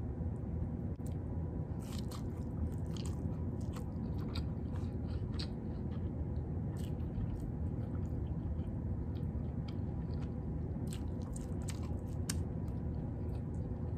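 Close-miked mouth sounds of someone eating buttered, seasoned salmon: wet chewing, lip smacks, finger licking and many short sharp clicks, over a steady low hum.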